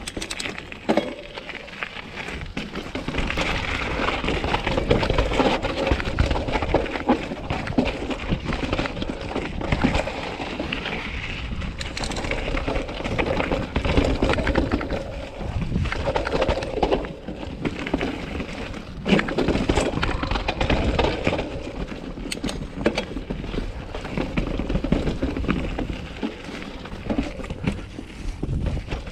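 Full-suspension mountain bike riding fast down a rocky, rooty dirt trail: the tyres crunch over dirt and stones while the bike's chain and frame rattle, with frequent sharp knocks as it hits rocks and roots.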